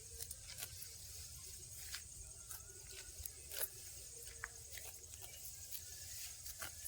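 Faint scattered rustles and clicks, with a steady high insect trill and a low rumble underneath.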